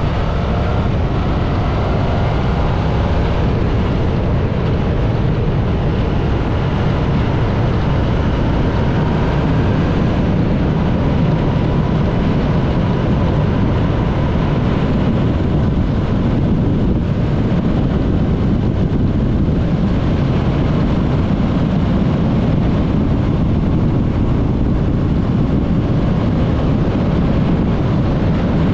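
Motorcycle engine running at road speed under heavy wind rush on the microphone, its note rising in pitch at the start and then holding steady.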